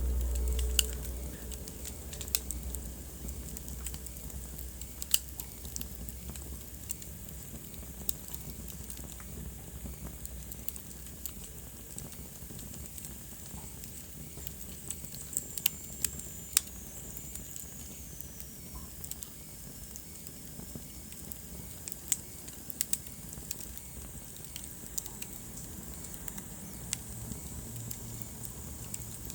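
Wood fire burning in a fireplace, crackling with scattered sharp pops over a steady low hiss. A faint high whistle falls slowly in pitch about halfway through.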